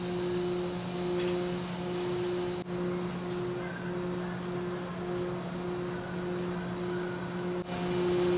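Steady drone of a large car ferry's machinery: a constant low hum with a higher tone pulsing in an even rhythm over a noisy background, broken for an instant twice.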